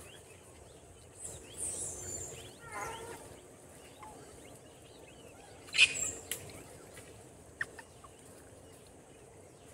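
A troop of macaques feeding together, giving short squeals and chatter. One sharp, loud shrill call comes about six seconds in.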